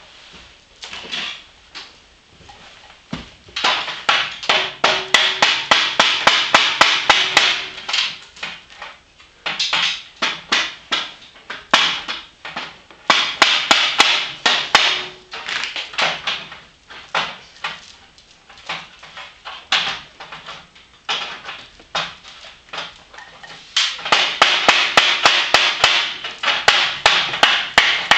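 Hammer blows on steel in quick runs of about four strikes a second, with short pauses between runs, driving a steel rod into a joint of a steel-tube robot leg. A faint metallic ring sits under some of the blows.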